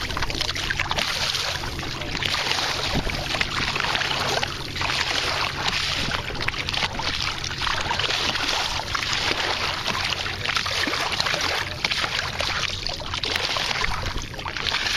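Bow wave of a sailboat under way: water rushing and splashing along the hull, a hiss that swells and fades every second or two as the bow meets each small wave, over a steady low rumble.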